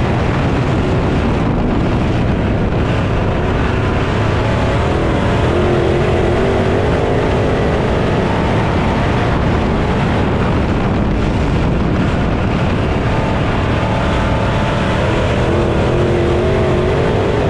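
A field of dirt-track race cars running hard around the oval. The engine pitch rises and falls as the cars pass through the corners.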